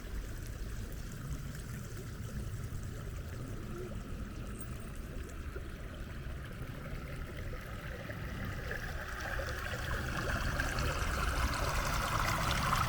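Woodland stream running and bubbling over stones in a steady rush of water, which grows louder over the last few seconds.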